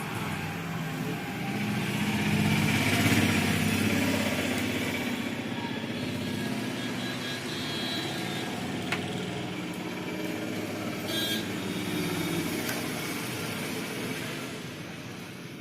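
A motor vehicle engine running close by, swelling to its loudest a few seconds in and slowly fading. About eleven seconds in, a short high beep from a multimeter's continuity buzzer.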